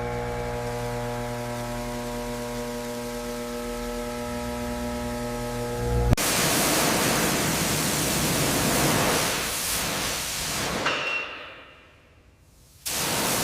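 A steady machine hum made up of several even tones, which cuts off sharply about six seconds in. A loud, even hiss replaces it, fades away near the end, and then starts again suddenly.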